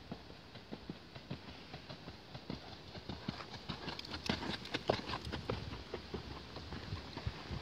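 Horse hooves on an arena's sand surface: a steady rhythm of soft thuds and clicks, loudest through the middle.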